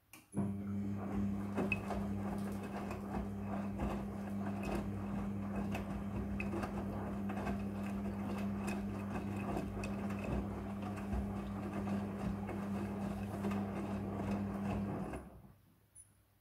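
Front-loading washing machine running: a steady machine hum with scattered light clicks and rustles, starting suddenly and cutting off about fifteen seconds later.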